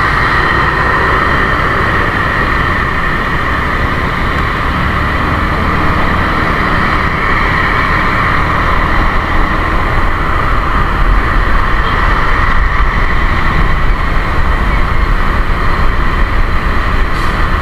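Steady rush of riding wind buffeting an action camera's built-in microphone on a moving motor scooter, with the scooter's engine and passing traffic underneath. It grows a little louder about halfway through.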